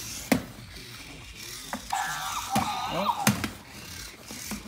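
Robot toy monkey's gear motors whirring and ratcheting as it walks, with a few sharp clicks.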